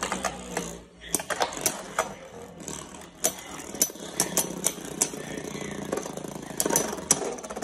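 Two Beyblade spinning tops whirring in a plastic stadium, with a steady grinding rasp from their tips on the plastic and irregular sharp clacks as they strike each other and the stadium wall.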